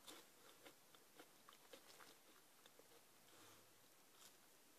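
Faint close-up chewing of fries: a string of small, irregular mouth clicks.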